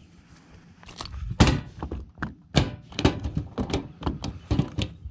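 A small largemouth bass flopping on a boat deck: a rapid, irregular run of loud thumps and knocks that starts about a second in.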